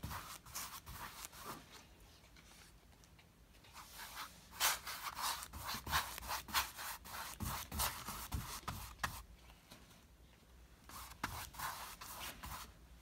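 A wide flat paintbrush rubbing acrylic paint across a stretched canvas: quick, repeated scratchy strokes in bursts, with a couple of short pauses between them.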